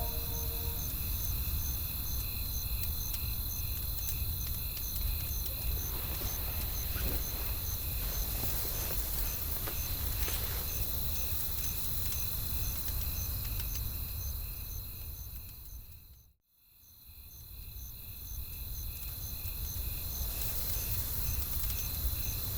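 Crickets chirping in an even, rapid pulse of about four chirps a second over a low steady rumble. About two thirds of the way through, the whole bed fades out to nothing and then fades back in.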